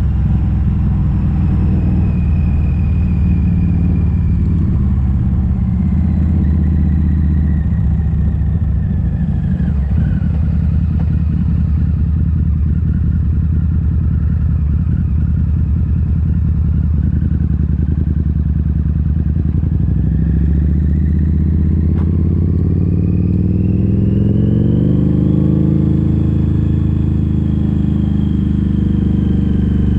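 Harley-Davidson V-Rod Muscle's liquid-cooled V-twin running through Vance & Hines slip-on mufflers with the catalytic converters removed. The engine note falls over the first ten seconds and holds low, then climbs steeply in pitch under acceleration from about twenty seconds in before levelling off.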